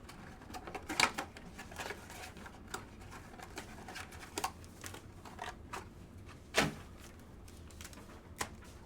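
Scattered light clicks and taps of trading card packs and their box being handled, with two louder knocks, about a second in and about two-thirds through.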